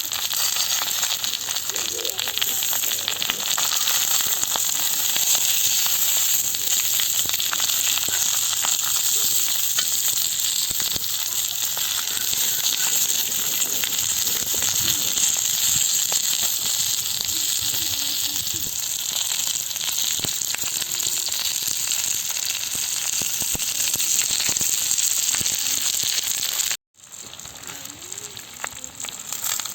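Oil sizzling steadily under a banana-leaf-wrapped chicken parcel frying on a dosa griddle. About 27 s in, the sound cuts out for a moment and comes back quieter.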